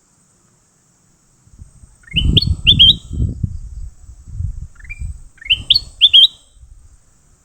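A bird calling in two bursts of three or four quick, rising chirps, a few seconds apart. Low rumbling noise runs beneath the calls.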